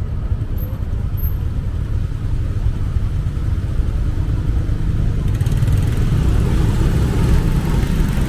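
Road noise from a motorcycle ride through city traffic: a steady low rumble of engine, tyres and wind on the microphone, growing louder and brighter about five seconds in.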